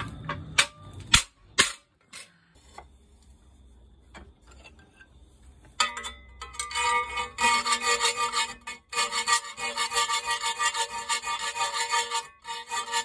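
Three sharp hammer blows on a punch driving through a thin steel plate on the anvil. From about six seconds in, a round file rasps back and forth in a punched hole of the steel plate, which is clamped in a vise and rings with each stroke.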